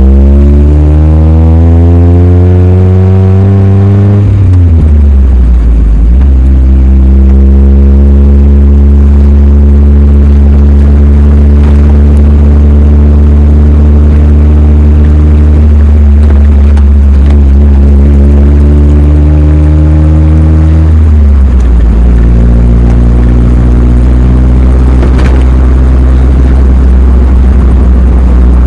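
Mazda Miata's four-cylinder engine running under load, climbing in pitch over the first few seconds, then dropping about four seconds in and again near the end, and holding steady between the drops.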